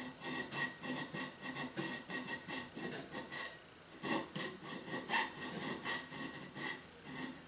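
Small hand file scraping across the edge of a laser-cut metal plate in quick short strokes, about four a second, with a brief pause about halfway through. The file is cutting away the rounded inside corner left by the laser cutter so that a linear rail will fit.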